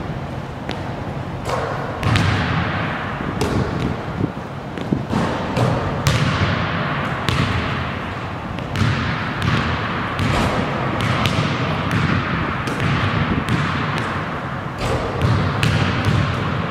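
Basketball bouncing on a hardwood gym floor: a string of irregular thuds over a hissing background noise.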